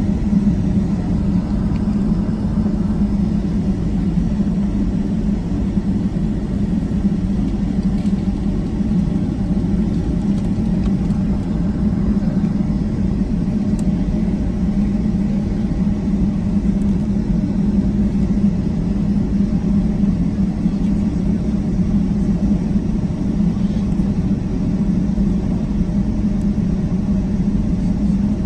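Cabin noise of a Boeing 757-200 taxiing: a steady low rumble with a constant hum.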